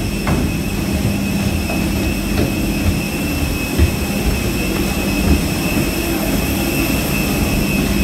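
Steady drone of a parked jet airliner at the gate, heard from inside the boarding bridge: a low rumble with a constant high whine over it.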